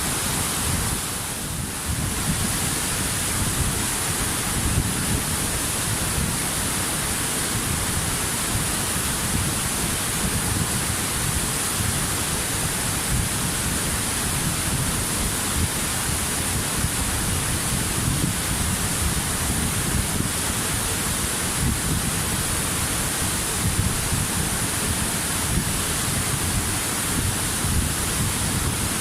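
Waterfall: a steady, even rush of falling water, with a brief slight dip in level about a second in.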